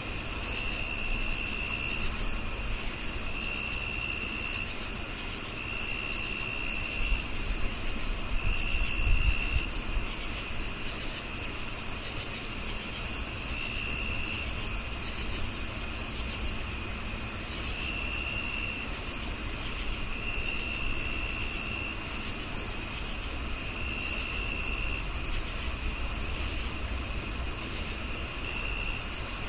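Crickets chirping, several at once: a steady high trill, a quick regular pulse of short chirps, and a lower trill that comes in bursts of about a second, repeating every couple of seconds. A brief low rumble about nine seconds in.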